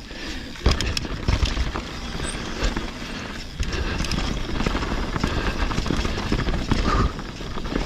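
Mountain bike riding fast down a dirt singletrack. The tyres rumble on the dirt, and the bike rattles and clicks over roots and bumps, with wind rumbling on the microphone.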